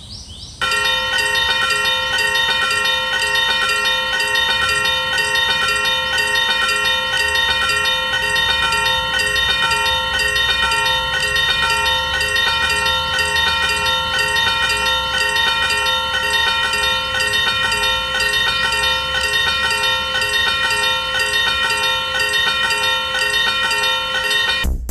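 Railway level-crossing warning bell ringing steadily: a loud, metallic ringing of several tones that starts abruptly about half a second in and cuts off just before the end.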